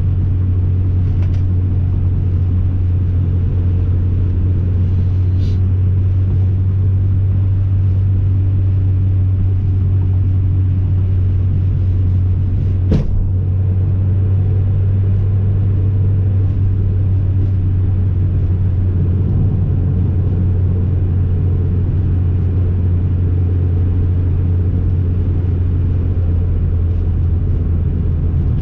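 BMW E30 M3's four-cylinder engine and road noise heard from inside the cabin, a steady low drone while cruising at an even speed. A single sharp click about halfway through.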